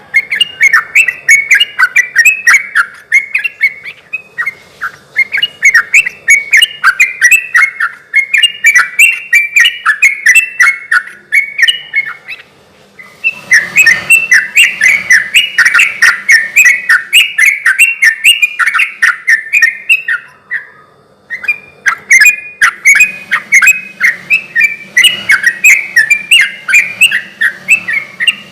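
Yellow-vented bulbul (trucukan) singing loudly in long bouts of fast, chattering phrases. It breaks off briefly three times and starts again each time.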